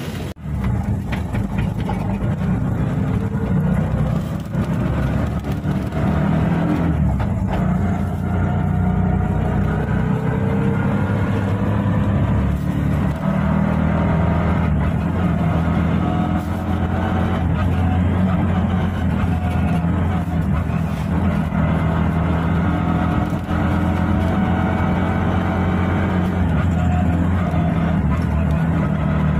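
Auto-rickshaw's small engine running as it drives along, heard from inside the open cab: a steady, low drone that rises and falls gently in pitch with the throttle.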